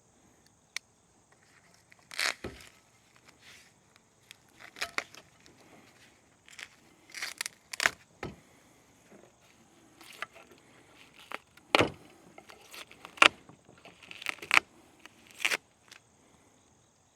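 Parts of a kayak landing-gear kit clacking and rattling as they are handled while the legs are unfolded and the handles fitted: a dozen or so scattered sharp knocks and short rattles, the sharpest two-thirds of the way through.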